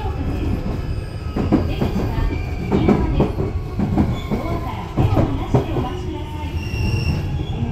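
Shizuoka Railway A3000-series electric train running, heard from inside the passenger car: a steady low rumble of wheels on rail with irregular sharp clacks over rail joints, and a faint whine from the traction motors.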